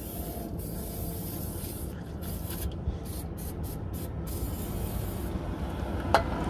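Aerosol can of degreaser spraying onto an exhaust pipe: a steady hiss that breaks off into several short bursts in the middle and stops about a second before the end. A single short click follows near the end.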